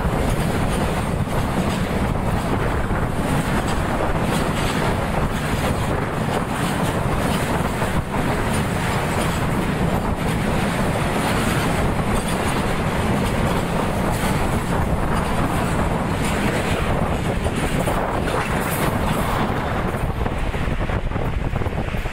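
Train passing close by at speed, a steady loud rush of wheel and running noise with faint regular clicks from the wheels over the rails.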